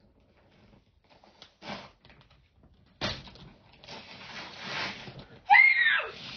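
Paper and packaging of a Christmas present rustling as it is handled and opened, starting suddenly about three seconds in. Near the end come two short high-pitched squeals, falling in pitch, which are the loudest sounds.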